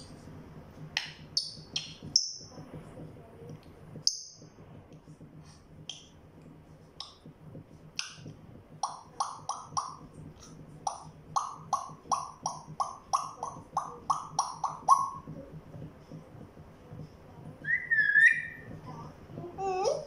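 African grey parrot vocalising: scattered short chirps and clicks, then a quick run of repeated short notes at about three a second, then a whistle and a rising whistled glide near the end.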